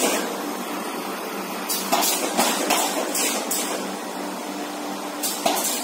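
Automatic partition assembling machine for corrugated-board box dividers running: a steady hum under runs of short, sharp mechanical strokes, a few in quick succession about two seconds in and again near the end.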